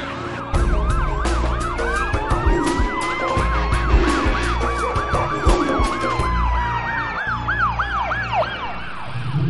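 Emergency vehicle sirens sounding together: one yelping in rapid rising-and-falling sweeps, about three to four a second, and another in a slow wail that rises and then falls, over a low rumble with scattered clicks.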